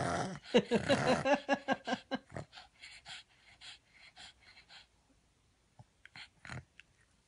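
Boston terrier breathing in quick, noisy huffs while having its chest scratched: a fast run of short breaths in the first couple of seconds that slows and fades out, followed by a few faint clicks near the end.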